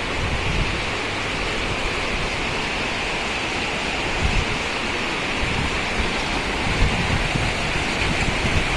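Heavy rain pouring steadily, with irregular low rumbles of wind buffeting the microphone.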